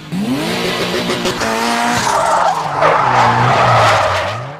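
Car engine revving up in quick rising sweeps, then a long tyre squeal from about two seconds in over the running engine, fading out at the end.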